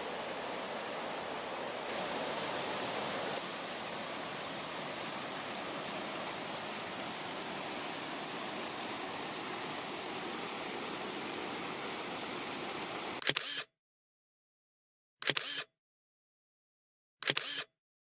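Steady rushing of the Wallace River. About thirteen seconds in it cuts off to dead silence, broken by three short camera-shutter clicks about two seconds apart.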